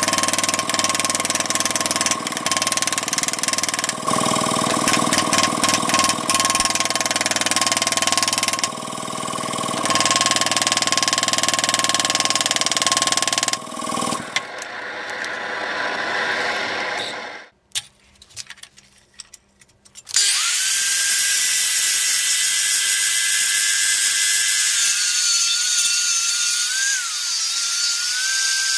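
A power tool cutting or grinding the steel billet runs steadily with a fixed whine, then winds down about fourteen seconds in. After a short lull with a few clicks, a higher-pitched tool starts up, and its whine wavers slightly near the end.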